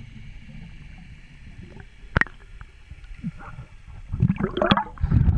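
Muffled water sound picked up by a camera held underwater beside a sailboat's hull: a low rumble and gurgling, with a sharp click about two seconds in. From about four seconds in the gurgling grows louder and busier, with knocks.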